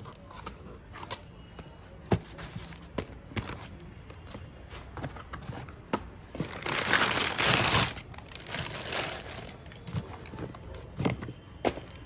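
Unboxing noise: cardboard and paper packaging handled, with scattered taps and knocks. About six and a half seconds in, a clear plastic bag wrapped around the pump crinkles loudly for a second or so.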